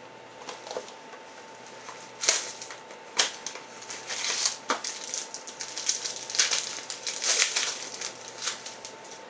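Trading card packaging and cards being handled: irregular crinkling and clicking, thickest from about two seconds in until near the end.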